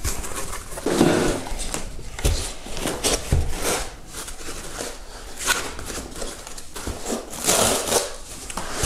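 Hands working dense foam packaging inserts out of a box, with irregular rubbing and scraping as the foam is pulled and slid free.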